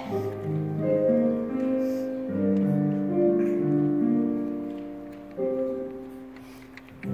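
Piano playing a slow instrumental introduction in held chords, the last chord fading away near the end.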